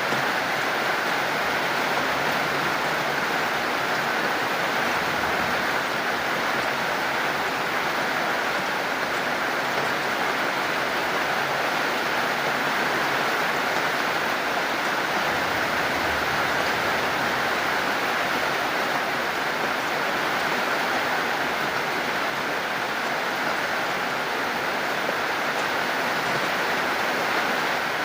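Steady heavy rain falling, an even hiss with no separate drops or pauses.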